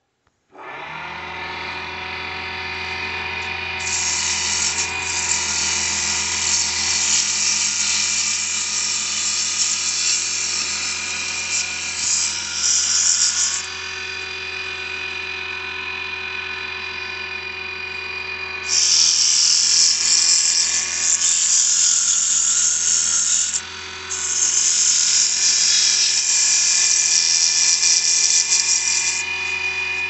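Wood lathe switching on about half a second in and running with a steady motor whine, with three long stretches of loud hiss as the spinning wood is worked.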